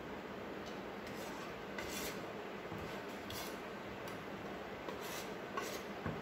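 A steel spoon scraping thick palkova against steel cookware: about five short scrapes, with a light knock near the end.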